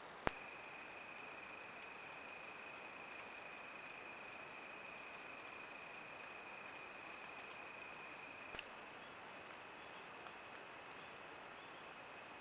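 Crickets trilling in a faint, continuous, steady high-pitched chorus over a light hiss. A sharp click comes just after the start, and a smaller one about eight and a half seconds in, after which the trill carries on at a slightly different pitch.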